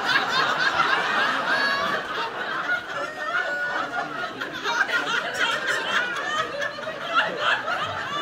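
Theatre audience laughing, many people at once.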